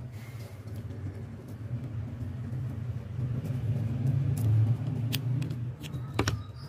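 A low rumble that swells to its loudest about four seconds in and then eases, with sharp clicks about five and six seconds in as a screwdriver tip picks at the label on an old PC fan's hub.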